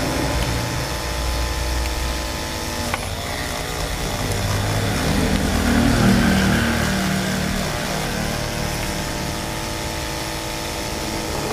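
Small electric drill running steadily with a bit in it, widening a hole in a Speakon connector.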